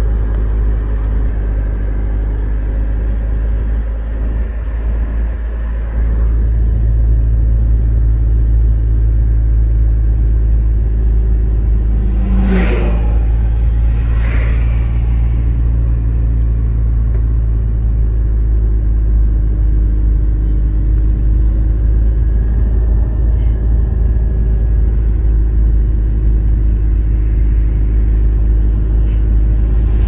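Car interior noise while driving: a steady engine and road rumble that gets louder about six seconds in. Two brief whooshes about halfway through, typical of passing traffic.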